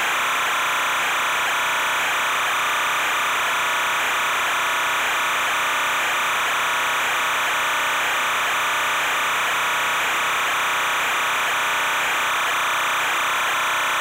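Steady hiss of static that never changes in level, sitting in the middle and upper range with little low rumble.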